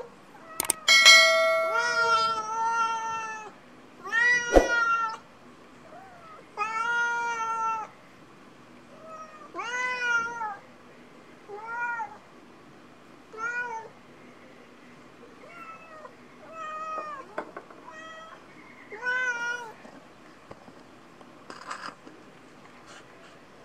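Domestic cats meowing over and over, about a dozen rising-and-falling meows, long and loud in the first few seconds and shorter and fainter after that, with a sharp click about four seconds in. Hungry cats begging for food just before a plate of rice and fish is set down for them.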